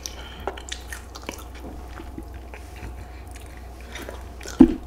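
Person chewing and biting a fried chicken wing close to the microphone: scattered small wet mouth clicks and smacks, with one louder short mouth sound near the end.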